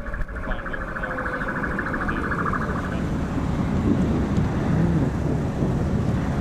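Car cabin noise while driving: a steady low rumble of engine and road. For about the first three seconds a rapid, evenly pulsing high tone sounds over it, then stops.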